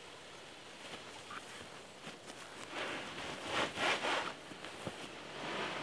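Wind strap being pulled over the heavy vinyl cover of a hoop coop, a rasping, zipper-like rub of strap on vinyl that comes in a few strokes and is loudest about three to four seconds in.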